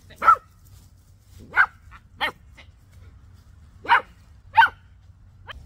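A dog barking: five sharp barks, mostly in pairs about two-thirds of a second apart, with a fainter short one near the end.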